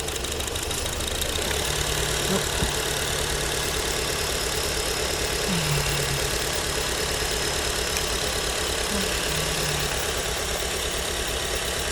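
Acura TSX 2.4-litre four-cylinder engine idling steadily with a misfire.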